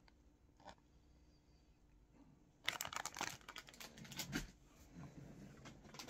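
Plastic packaging crinkling and rustling as it is handled. It starts suddenly about two and a half seconds in with a quick run of crackles, then goes on as softer rustling.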